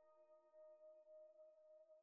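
Near silence: the faint, fading tail of one held chord from background music.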